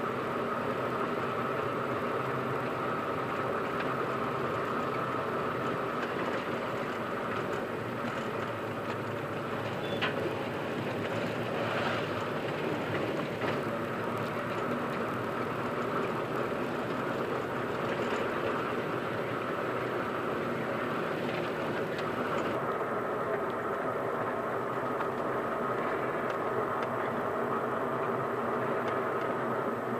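Steady engine and road noise of a moving vehicle, heard from inside the vehicle as it drives along.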